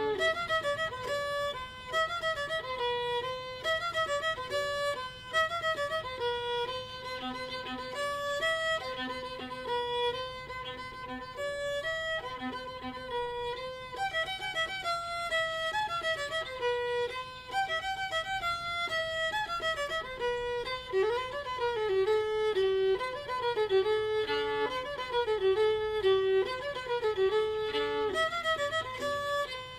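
Background music: a fiddle playing a melodic tune, the notes changing several times a second.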